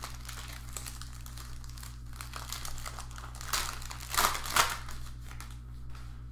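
Crinkling and rustling of card packaging and trading cards being handled, with a few louder crinkles about four seconds in.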